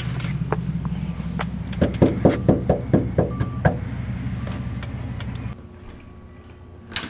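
Knuckles rapping on a front door, a quick run of about eight knocks lasting some two seconds.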